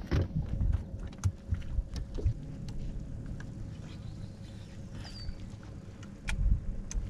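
Sounds from the deck of a bass boat: wind rumbling on the microphone, a faint steady hum, and scattered light clicks and knocks of fishing gear. A short high chirp comes about five seconds in, and the low rumble grows louder near the end.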